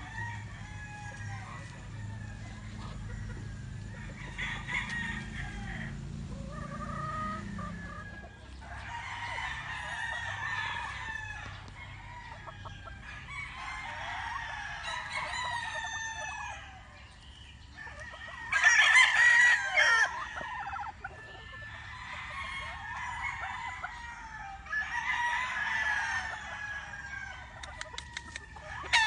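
Roosters crowing over and over, about six crows a few seconds apart, the loudest about two-thirds of the way through, with chickens clucking in between.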